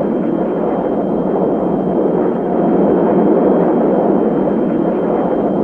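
Steady jet noise of two Fairchild Republic A-10 Thunderbolt IIs flying overhead, from their General Electric TF34 turbofan engines, with a faint high whine held throughout.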